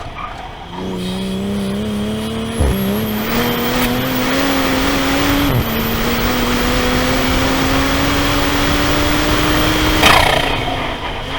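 Toyota GR Supra (A90) engine accelerating hard on track, its note climbing through two upshifts and then falling away after a sharp crack near the end as the driver lifts off. A steady hiss from the wet track runs underneath.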